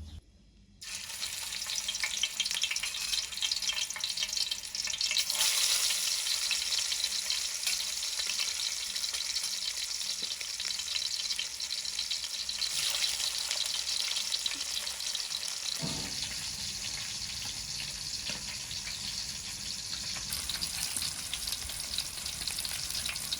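Food frying in a pan: a steady crackling sizzle that starts under a second in and grows louder about five seconds in.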